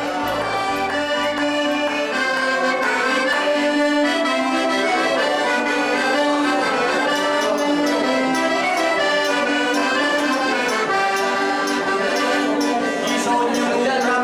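A Giustozzi piano accordion playing a folk song melody over chords, with no singing; deep bass notes sound only in the first second.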